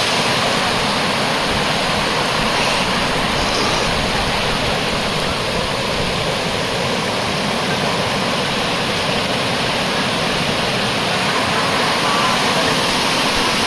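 Waterfall's water rushing and splashing in a steady, loud, unbroken wash of noise.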